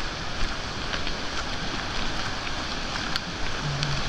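Steady rushing of water, with a few faint clicks.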